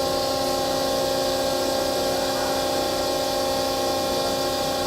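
Hydraulic power unit of a 25-ton CNC hydraulic press brake running steadily: a constant electric-motor and pump hum with a steady whine and no change in pitch.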